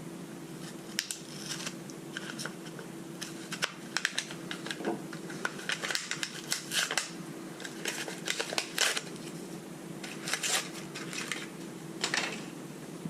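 Hands handling small tools and parts, a run of irregular clicks, taps and rustles that is busiest in the middle, over a steady low hum.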